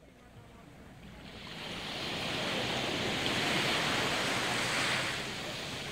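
A small wave breaking and washing up a sandy beach. The surf builds from about a second in, is loudest in the middle, and eases off near the end.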